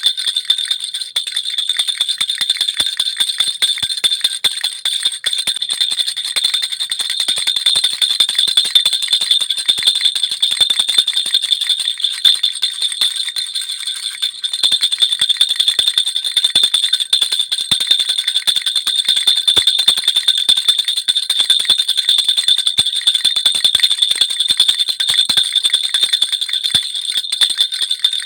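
Baby rattle (jhunjhuna) shaken continuously, its small bells jingling in a dense, rapid stream without pause.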